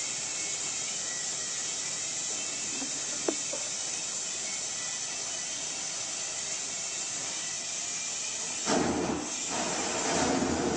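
Gas torch hissing steadily as it heats bronze for a patina. About nine seconds in, a louder, fuller rush comes in.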